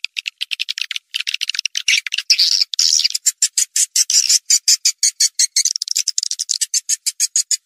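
Recorded swiftlet calling sound, the lure track played to draw swiftlets into a nesting house: rapid, high twittering chirps, many a second, with a short break about a second in.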